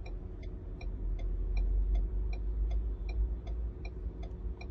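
Quick, even electronic ticking, roughly three to four ticks a second, over a steady low hum.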